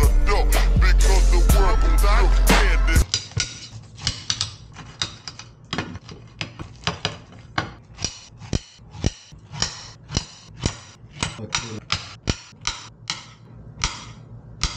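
Music with a beat that cuts off suddenly about three seconds in, followed by a kitchen knife slicing a pineapple on a ceramic plate: sharp clicks of the blade striking the plate, about two a second.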